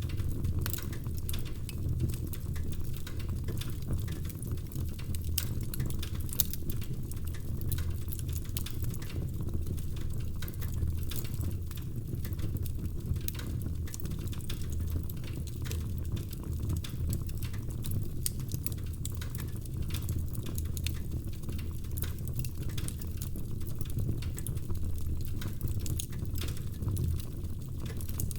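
Wood fire burning steadily: a low rumble of flame under constant irregular crackling and popping of the logs.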